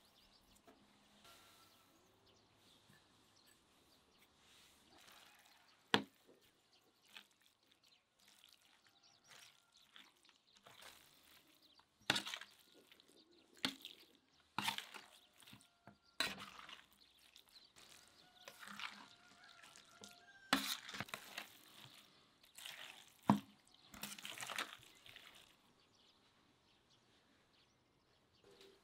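Chopped raw meat being mixed with herbs, garlic and spices in a bowl: irregular wet, sticky sounds with sharp clicks. It is sparse at first, busiest through the second half and dies down near the end.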